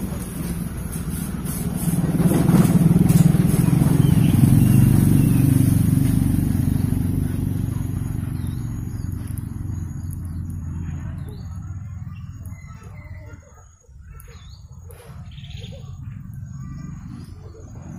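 An engine passing by: a low rumble that swells a couple of seconds in, is loudest for a few seconds, then slowly fades away by about thirteen seconds in.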